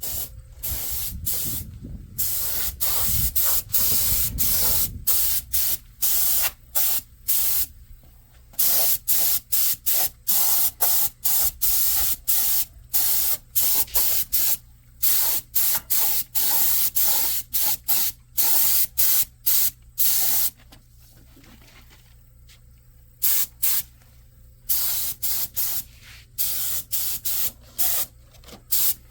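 POR-15 rust-encapsulating coating being sprayed onto a truck's rusty frame in many short hissing bursts, with a pause of a few seconds about two-thirds of the way through.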